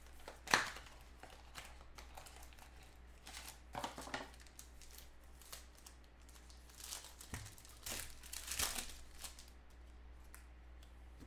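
Clear plastic wrapping crinkling and tearing in the hands while a pack of trading cards is opened, in several short irregular bursts with quieter handling in between. The sharpest burst comes about half a second in.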